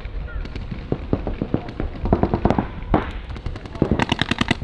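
Paintball markers firing: scattered single shots and short strings, then a fast burst of about ten shots near the end.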